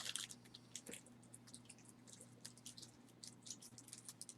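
Faint, scattered little clicks and taps of small costume jewelry pieces being handled, over a steady low electrical hum.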